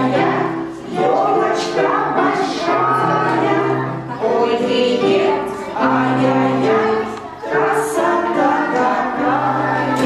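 A song with a group of voices singing over a musical accompaniment.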